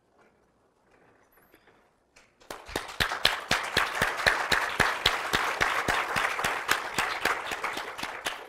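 A few faint footsteps on a stage floor, then an audience applauding from about two and a half seconds in, the clapping tailing off near the end.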